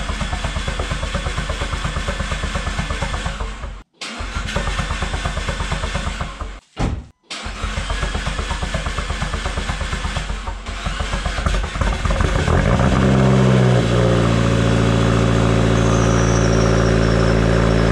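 Car engine cranked by the starter in a few attempts with short breaks, after its oil and fuel pressure were primed. It catches about twelve seconds in and settles into a steady, louder run.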